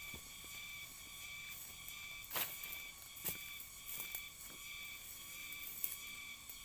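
Steady insect chorus of several shrill, unchanging tones, with footsteps in rubber boots crunching through dry grass and leaf litter, a few sharp rustles and knocks starting about two seconds in.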